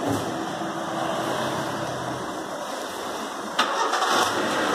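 Maruti Suzuki WagonR's engine running, with the car hooked up to an HHO carbon-cleaning machine. It sets in with a steady hum, and about three and a half seconds in a sudden, louder rush of noise comes in.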